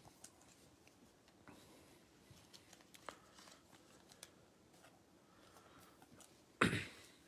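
Faint clicks and slides of glossy chrome trading cards being flipped through one by one in the hands, with a brief louder rustle near the end.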